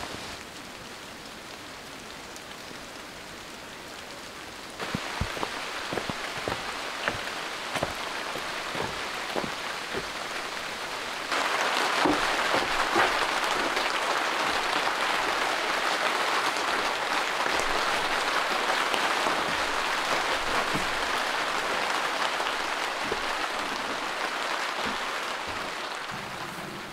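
Steady rain with heavy single drops ticking. It gets louder in two steps, about five and about eleven seconds in, and is loudest where it drums on a plastic tarpaulin roof stretched over a dry-stone building.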